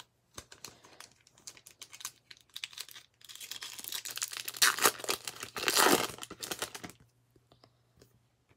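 Foil wrapper of a 2014 Bowman Draft baseball card pack crinkling in the hands, then torn open with a run of loud crackling tearing that lasts about four seconds and stops near the end.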